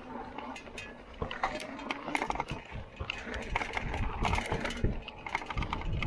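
Lectric XP electric bike rattling and clicking as it rides over rough, bumpy dirt, the clatter getting denser and louder about a second in.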